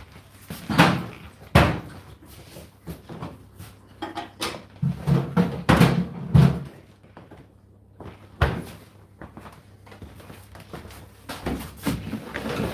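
A series of sudden knocks and thuds, like doors or cupboards being shut and things set down, with the strongest about a second and a half in and again past the middle.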